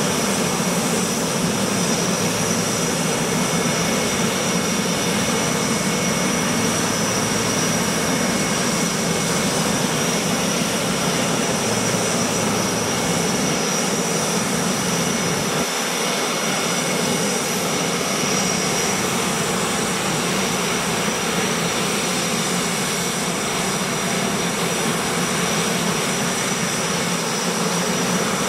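Jet engine running steadily: an even rush of noise with a high, steady whine on top. The deepest rumble thins out about halfway through.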